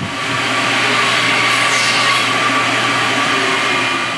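Loud, steady whirring noise of a motor-driven machine running, with a low hum underneath, cutting off abruptly at the very end.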